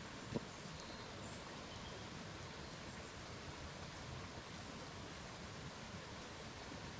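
Steady, faint outdoor background hiss with one sharp knock about half a second in.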